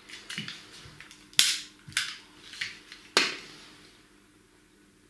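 A few sharp clicks and knocks as parts of a small metal model Stirling engine and its alcohol lamp are handled and set down, the two loudest about a second and a half and about three seconds in.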